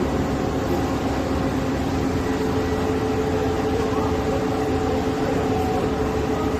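Kuraki KBT-10DX CNC horizontal boring and milling machine running, a steady mechanical hum with several constant tones over a noisy whir.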